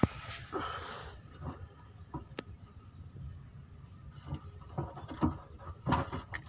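Scattered light clicks and knocks of hands working a plastic fuel-line quick connector off a car's in-line fuel filter, with a sharp click at the very start and a busier cluster near the end.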